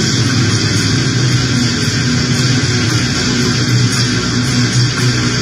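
Noise music: a loud, dense, unbroken wash of distorted sound over a steady low drone.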